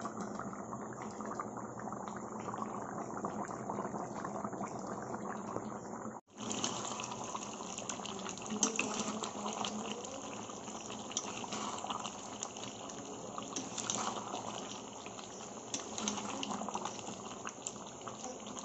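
Chicken curry bubbling and sizzling in a pan, cooking down in a little added water. The sound drops out for an instant about six seconds in and comes back crackling, with scattered clicks.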